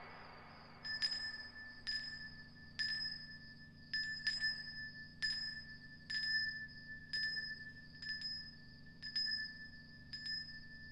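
Light chime strikes about once a second, some coming in quick pairs, over a steady ringing tone.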